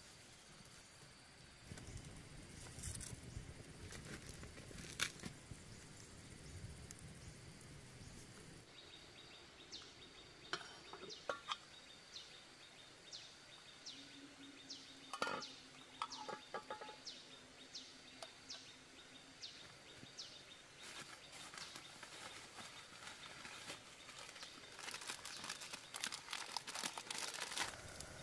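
A small wood fire crackling under a pot of heating water, with a few light knocks; the crackling grows dense near the end. A run of short high bird chirps sounds through the middle.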